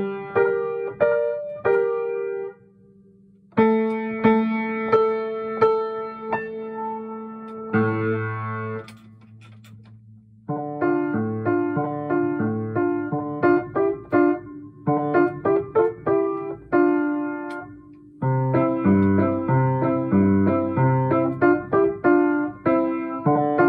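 Piano playing a toccatina, a quick run of struck notes and repeated chords. Playing breaks off for about a second early in the passage, turns quieter over a held low note for a couple of seconds about a third of the way through, and pauses briefly again before picking up.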